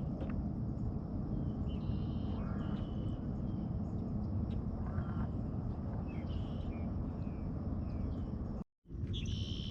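Birds calling several times in short high calls over a steady low rumble; the sound cuts out completely for a moment near the end.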